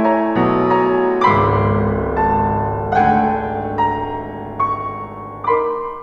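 Piano playing a classical chamber-music passage: a line of separate struck notes over a low bass note held for about four seconds, starting about a second in.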